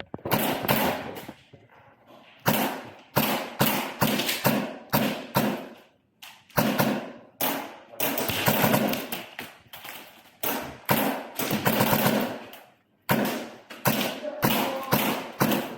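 Airsoft guns firing in a skirmish: a long run of irregular sharp cracks and knocks, some single and some in quick strings, with brief lulls about six seconds in and near thirteen seconds.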